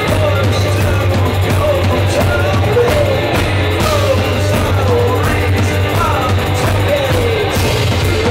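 Live band playing loud: banjo strumming, drums and sung vocals, with sliding notes that fall in pitch about once a second.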